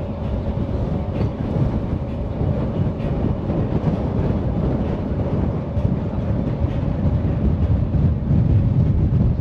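Passenger ferry's engine running steadily under way, a continuous low rumble with a steady hum above it.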